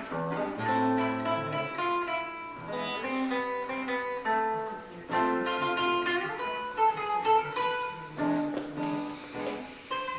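Acoustic guitar playing an instrumental passage, a run of plucked notes and chords.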